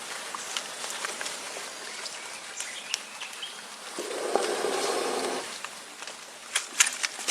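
Outdoor ambience with insects buzzing and scattered small clicks and taps. About four seconds in, a louder hum lasts over a second and stops abruptly.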